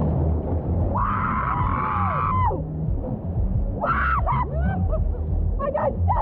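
A person's long, high whoop about a second in, falling away at its end, then shorter yells, over a steady rush of whitewater and wind on the microphone.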